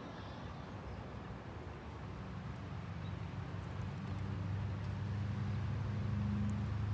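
Low engine hum, faint at first and growing steadily louder from about two seconds in.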